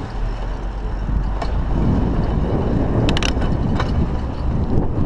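Wind rushing over a chest-mounted action camera's microphone and tyre rumble from a mountain bike riding on tarmac, a steady low noise. A few sharp clicks and rattles cut through, once about a second in and several close together around the middle.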